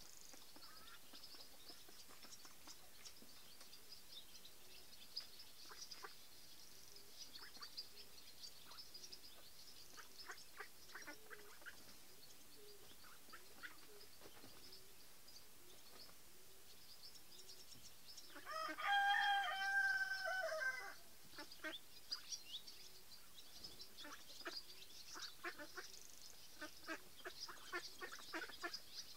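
A male common (ring-necked) pheasant gives one loud, harsh crow about two-thirds of the way through, lasting about two seconds. Faint high chirps and small ticks come and go around it.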